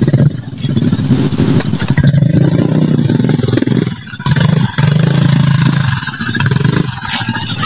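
Small motorcycle engines running and revving, loud and close, with brief dips about four seconds in.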